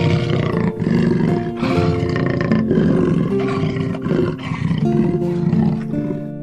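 A large wild animal giving a run of rough, loud calls about a second apart, over soft background music. The calls stop shortly before the end.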